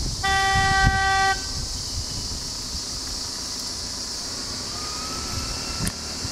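A vehicle horn gives one steady honk about a second long, shortly after the start, over the low running of passing traffic engines. A steady high hiss continues throughout.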